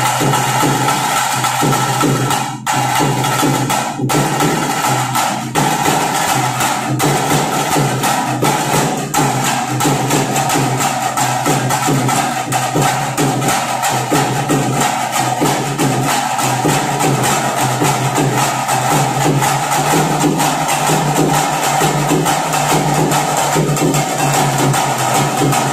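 Loud, fast drumming from a percussion band, the beats coming in a dense, unbroken rhythm.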